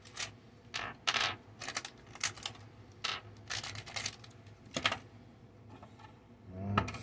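Quick irregular clicks and plastic crackles of AAA batteries being pulled from their packaging and handled on a tabletop, busiest in the first five seconds and then sparse.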